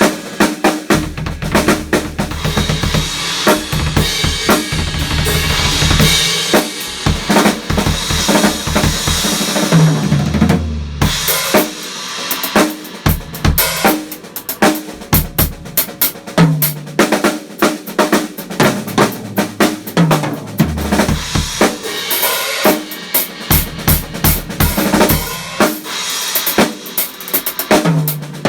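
Sonor drum kit played as a solo: bass drum, snare and cymbals, with a wash of cymbals over roughly the first ten seconds, a brief break at about eleven seconds, then sharper separate snare hits and occasional low drum thuds.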